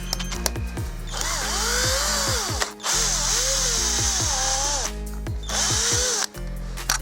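Power drill running in two bursts over background music: a longer one of about four seconds and a short one near the end, its motor whine rising and falling in pitch.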